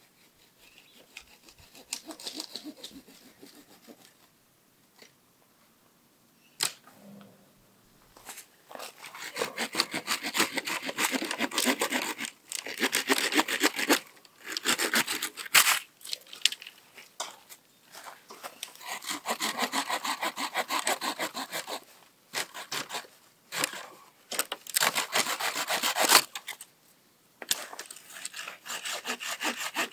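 Hand pruning saw cutting through a tree branch: runs of quick back-and-forth rasping strokes that stop and start again several times.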